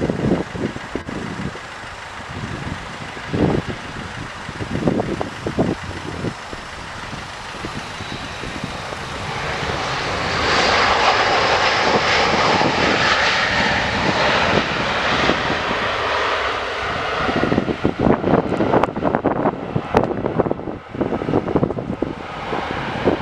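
Airliner's engines rising to a loud, steady rush as the aircraft passes close by, then fading away, with wind buffeting the microphone.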